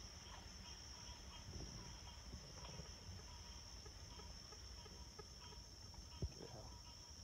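Faint, steady high-pitched trill of a night insect chorus, crickets. A single short knock about six seconds in.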